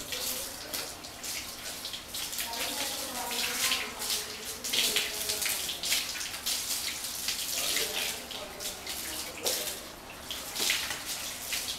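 Water from a garden hose running and splashing over a wet dog's coat and onto a tiled floor, in uneven splashes.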